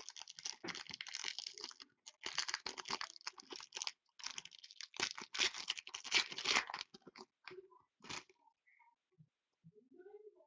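A foil hockey card pack being torn open and crinkled by hand: a run of crackling, rustling tears for about eight seconds, then only a few faint handling sounds.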